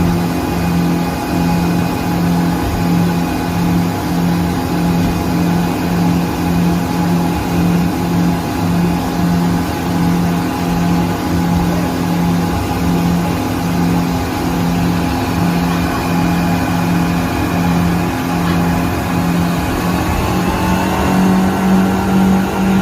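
Suzuki DF115 four-stroke outboard motor running steadily under way, with a regular pulsing throb in its note. The engine note rises slightly near the end.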